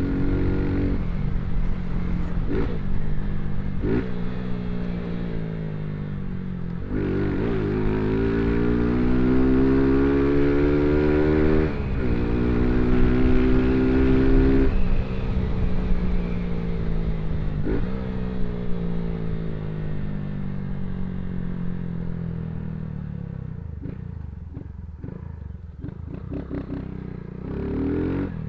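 Motorcycle with a loud exhaust accelerating hard through the gears: the engine pitch climbs, drops sharply at two upshifts, then falls away as the bike slows and picks up again near the end.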